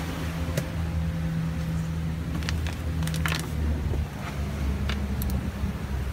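A boat's outboard motors running with a steady low hum, with a few short clicks and knocks of handled gear over it.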